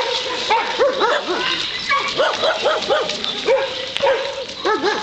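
Several dogs yipping and barking, many short calls overlapping in a rapid, continuous run.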